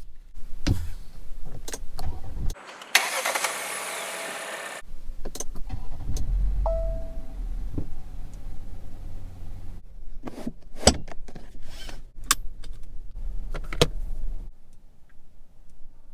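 Car interior sounds: sharp clicks of buttons and switches, a two-second rushing noise about three seconds in, then a Geely Binyue COOL engine idling with a low steady hum that stops near the end. A short electronic chime sounds about six and a half seconds in.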